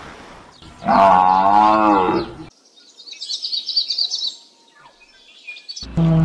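Young brown cattle mooing once, a wavering call lasting about a second and a half, starting about a second in. A bird chirps briefly a little later.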